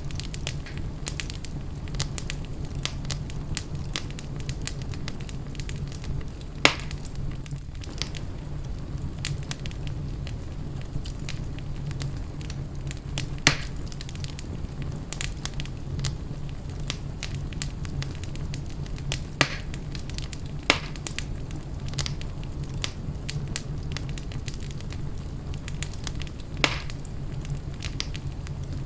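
Wood fire burning in a fireplace: constant fine crackling over a steady low rumble, with a few louder sharp pops spread through.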